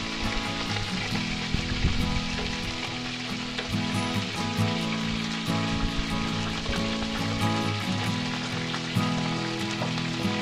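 Wood fire burning under a metal comal, a steady crackling hiss with small pops scattered through it. Music with held low notes plays underneath.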